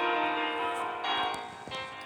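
Background music with sustained bell-like chiming notes.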